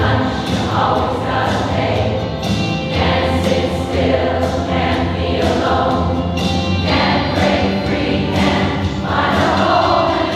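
Large women's choir singing in harmony, with sustained, swelling chords.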